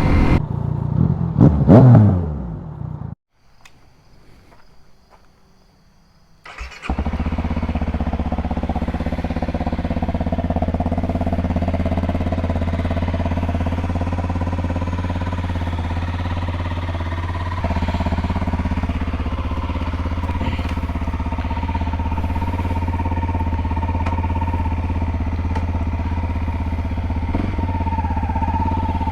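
Honda CRF250L's single-cylinder four-stroke engine revving and dropping in pitch, then a few seconds of quiet, then the engine running steadily at idle.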